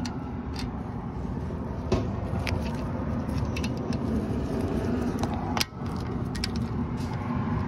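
Scattered sharp metallic clicks and clinks of a wrench working a rear brake caliper bolt, the sharpest about five and a half seconds in, over a steady low hum.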